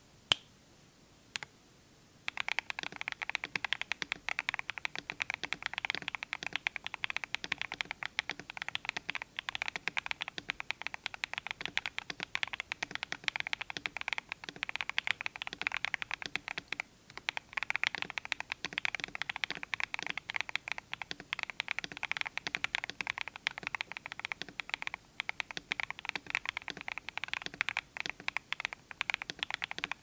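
Fast typing on an Akko 5075B mechanical keyboard with factory-lubed Lumia Duhuk Bitter Tea switches, a polycarbonate plate and PBT cherry-profile keycaps: a rapid stream of key clacks. Two single clicks come first, the steady typing begins about two seconds in, and there is a brief pause a little past halfway.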